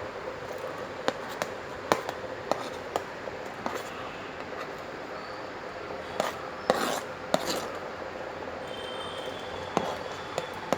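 Kitchen utensil scraping and tapping irregularly as chopped vegetables are tipped into boiling water in an electric kettle, over a steady hiss.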